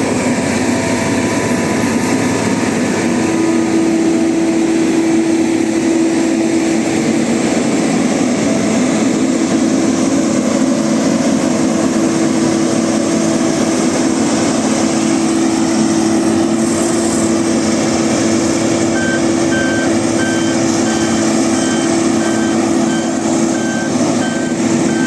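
Heavy diesel construction vehicle running steadily at a road works site, with a steady engine drone. About three-quarters of the way in, a reversing alarm starts beeping at an even pace, roughly one beep every 0.7 seconds, as the vehicle backs up.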